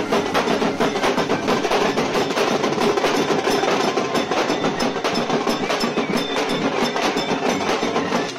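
Loud, fast drumming, a dense run of strokes many times a second, with no pause.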